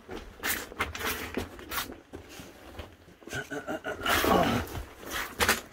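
Footsteps and scuffs on the loose rock floor of a mine tunnel: irregular crunches and scrapes, with a short low voice-like sound, a grunt or murmur, about four seconds in.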